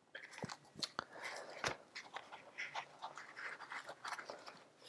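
Faint rustling of paper and cardboard as hands handle a small knife box and its packing, with a few light taps and clicks, mostly in the first two seconds.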